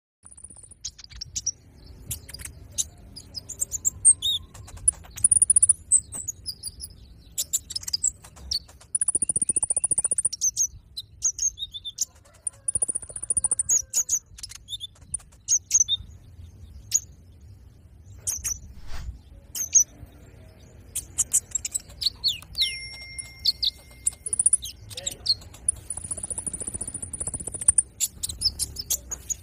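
Konin (brown-throated sunbird) chirping rapidly: sharp high-pitched notes mixed with short, very high trills of about a second each, the excited twittering that bird keepers use to provoke other konin into singing.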